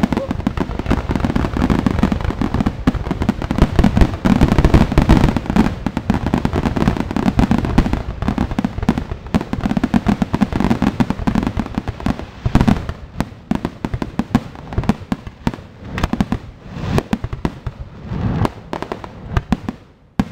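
Aerial fireworks display going off: a dense, continuous barrage of bangs and crackles that thins after about twelve seconds into separate booms and crackling, trailing off near the end.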